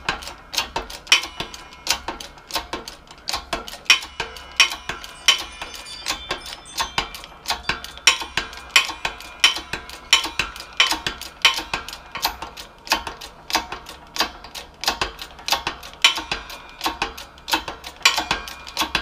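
Hand-pumped hydraulic jack of a 20-ton shop press being worked, giving a run of sharp metallic clicks, roughly three a second and uneven, as it slowly forces a piston pin out of a small-block Ford piston.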